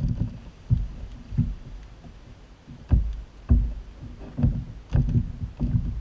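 Irregular knocks and thumps on a 2018 Hobie Mirage Outback's plastic kayak hull, about nine in six seconds, as the paddler gets out and handles the paddle.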